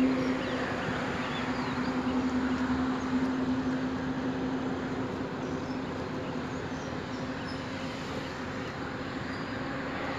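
Outdoor ambience: a steady rushing background noise with a low steady hum that fades out about halfway through, and a few faint bird chirps.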